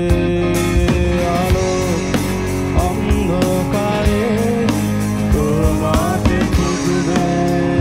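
Live rock band playing: electric guitar and bass over a drum kit with a steady beat, a melody line wavering above.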